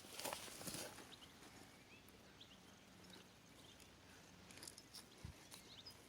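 Near silence: a few faint rustles in the first second, then quiet background with a few faint, short high chirps.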